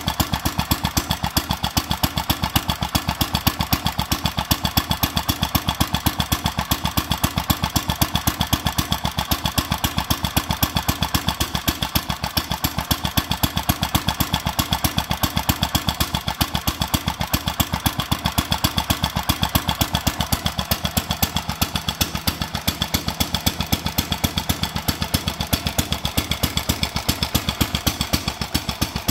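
1946 Fairbanks Morse Z Style D 2 HP single-cylinder, magneto-fired, throttle-governed engine running steadily, each firing stroke heard as an even rapid beat.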